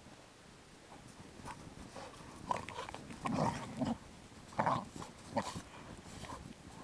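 Chesapeake Bay retriever and Labrador retriever puppies play-wrestling in deep snow, grunting and growling in several short bursts between about two and a half and five and a half seconds in.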